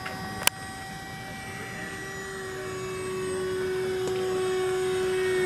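Radio-controlled model jet flying by, its engine whine growing steadily louder as it approaches, with one strong tone sliding slightly down in pitch. A single sharp click about half a second in.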